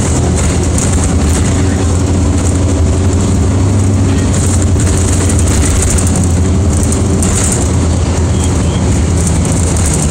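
Steady low drone of a city bus's engine and drivetrain under way, with road noise, heard from inside the passenger cabin.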